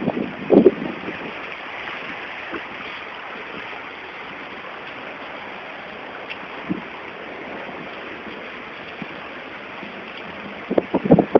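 Heavy rain and running floodwater: a steady even hiss of water, with a few brief buffets of wind on the microphone about half a second in and near the end.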